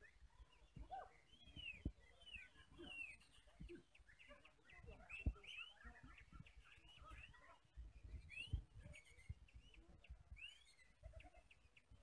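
Caged oriental magpie-robins (kacer) singing faintly, many overlapping rising and falling whistles and chirps, with a few low thumps underneath.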